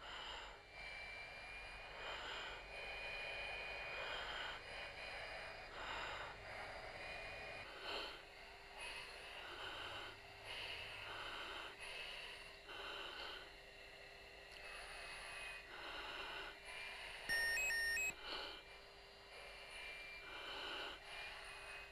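A jet pilot's breathing heard through his oxygen-mask microphone: short, regular breaths about every second and a half over a faint steady tone. A brief electronic beep sounds about four fifths of the way through.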